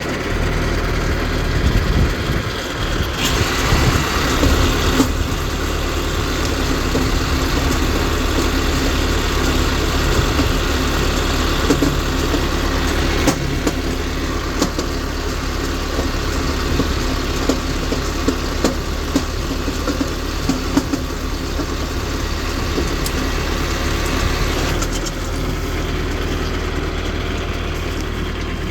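A heavy machine's engine running steadily, with scattered sharp clicks and cracks over it. It grows louder for a moment a few seconds in and eases slightly near the end.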